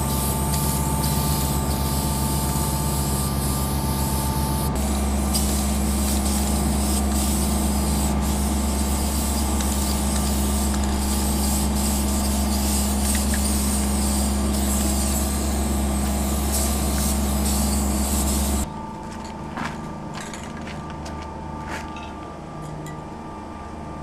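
Steady hum of an idling diesel locomotive with a constant hiss over it. After about nineteen seconds it drops abruptly to a quieter background with a few clicks.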